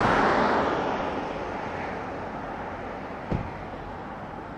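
Military aircraft engine noise, a loud rushing roar at first that steadily fades as the aircraft moves away. A single short click sounds a little past three seconds in.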